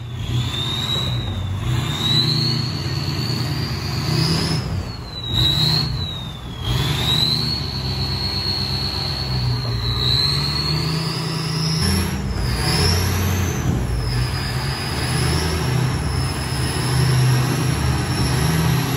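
Pickup truck engine running under load as it tows an aluminum jon boat up a dirt bank on a strap, with the hull scraping over the ground. A thin high whine wavers up and down throughout.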